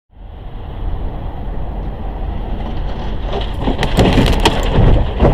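Steady low rumble of a vehicle on the road, then about three seconds in a run of sharp cracks and crunches that continue to the end: a vehicle collision.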